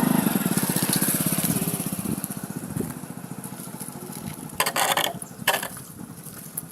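A small motor vehicle engine running with a rapid, even pulse, fading away over the first three seconds. Two short bursts of noise follow about five seconds in.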